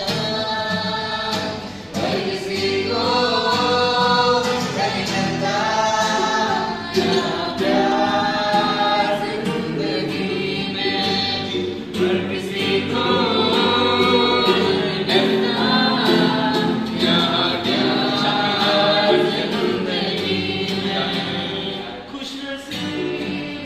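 A group of voices singing a Hindi song together, accompanied by an acoustic guitar.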